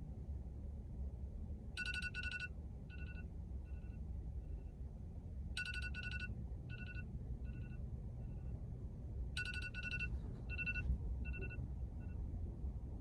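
Electronic alarm tone of the ringtone kind: a pattern of two bright beeps followed by fading echo beeps, repeating three times about four seconds apart. A steady low rumble runs underneath.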